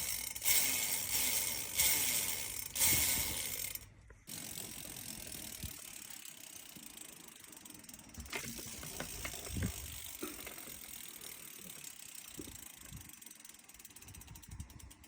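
Hope Pro4 rear hub freewheeling, its pawls ratcheting in a loud, fast buzz that comes in surges for about four seconds and then cuts off suddenly. Fainter scattered clicks follow. The pawls are held out by newly fitted silicone elastomer pawl springs in place of the broken steel ones.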